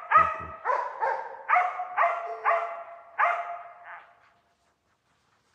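West Siberian laika hunting dogs barking in a steady run of about two barks a second: a bay at game that the hunter takes to be a bear. The barking cuts off about four seconds in.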